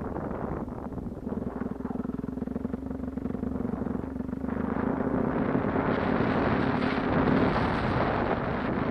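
Suzuki DR-Z400 dirt bike's single-cylinder four-stroke engine running at a steady pitch, with wind buffeting the microphone and growing louder about halfway through.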